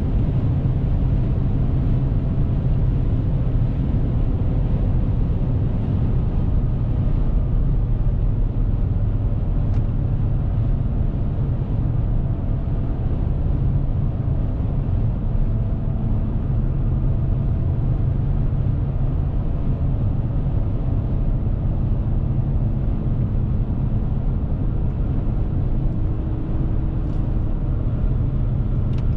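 Steady low drone of a Dodge Ram 1500's 5.7 Hemi V8 and tyre and road roar, heard inside the cab while the truck cruises on a motorway and slowly loses speed.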